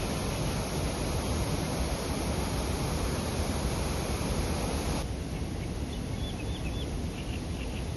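Steady rushing outdoor noise for about five seconds, then an abrupt switch to a quieter ambience in which a small bird gives a few short, high chirps.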